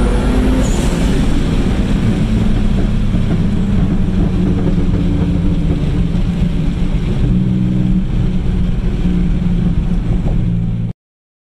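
Single-turbo Mitsubishi 3000GT VR-4's 3.0-litre V6 running loud, heard from inside the cabin while driving, with wind noise. The revs fall from around 5,000 rpm in the first second or two, then hold near 3,000 rpm with a shift in the engine note about seven seconds in. The sound cuts off abruptly near the end.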